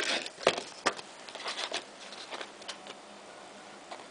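Clear plastic tube packaging handled and lifted off a toy: a quick run of sharp clicks, taps and rustles, loudest in the first second or so, then a few fainter ticks and scrapes.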